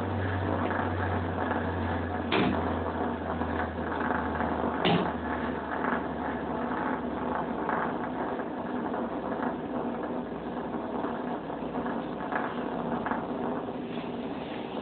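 Large steel sockets spinning like tops on a concrete floor, a continuous metallic rattling whirr, with two sharp clinks about two and five seconds in.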